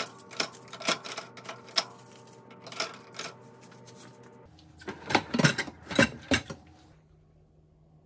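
Metal spoons and forks clinking against each other and the dishwasher's plastic cutlery tray as they are slotted in: a quick run of sharp clinks, then a second flurry about five seconds in.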